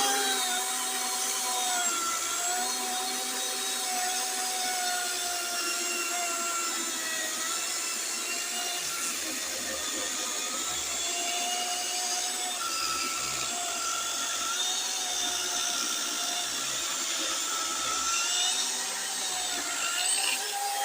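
DeWalt DCCS670 16-inch 60V FlexVolt cordless chainsaw cutting through a softwood log about 12 inches thick: a continuous electric motor and chain whine whose pitch dips and recovers as the chain loads in the wood. It stops near the end as the cut finishes.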